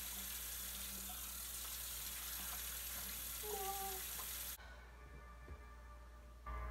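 Bathroom tap running into a sink with an even hiss of water, which cuts off suddenly about four and a half seconds in.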